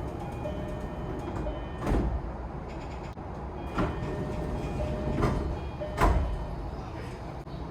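Door chime of a JR East E233-0 series train, set T71, the one set whose chime differs from the rest, sounding in short repeated tones. The train's sliding doors thud heavily four times as they move.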